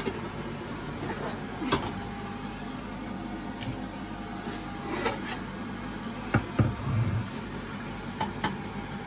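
Metal cookware knocking and clattering on a gas hob as pans are moved and a nonstick kadhai is set down, a few scattered knocks with the loudest pair and a dull thump about six and a half seconds in, over a steady background hum.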